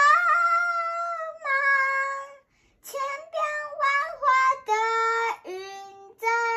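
A young girl singing a song she made up herself, in a high child's voice. A long held note opens, then comes a brief pause, then a run of quicker notes and a few more held ones.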